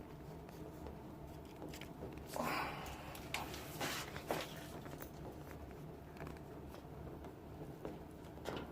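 Faint handling noises of plastic drain hose and fittings: a brief rustle and a few small clicks, over a steady low hum.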